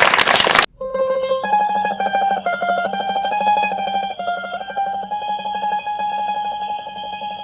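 A loud burst of noise cuts off abruptly under a second in, and music starts: a slow melody on a plucked-string instrument such as a mandolin, each note held as a rapid tremolo, easing slightly in volume near the end.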